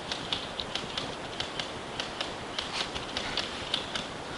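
Airsoft gunfire: an exchange of shots and BB hits heard as irregular sharp clicks and pops, about four a second.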